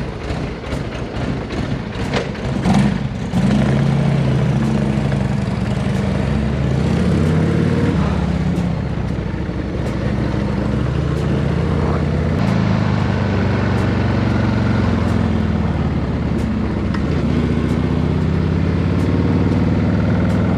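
Motorcycle engine running, its pitch rising and falling with the throttle. It gets louder about three and a half seconds in as the bike pulls away and is ridden.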